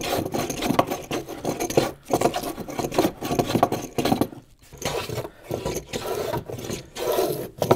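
Small hand plane taking shavings off a maple workbench top with raised walnut inlays and cured epoxy, in repeated strokes with short pauses between them.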